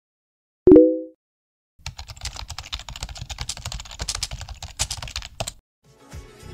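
A short, loud beep, then about four seconds of rapid computer keyboard typing, many quick key clicks in a row.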